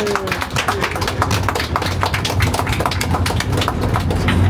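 A small group clapping, with a drawn-out cheer trailing off at the start and the steady low rumble of the old tram underneath.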